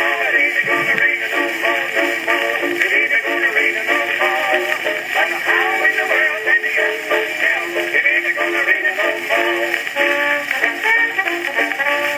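Acoustic wind-up phonograph playing a 78 rpm shellac record through a loud steel needle: a man singing a jaunty song with accompaniment. The sound is thin and horn-like, with no bass.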